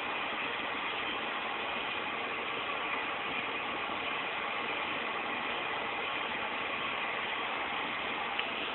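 Steady hiss of background room noise, even and unchanging, with a faint click near the end.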